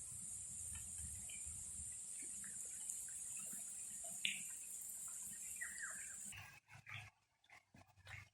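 Animal chorus: a steady high-pitched drone with scattered short chirps over a low rumble, cutting off suddenly about six seconds in and leaving a few faint clicks.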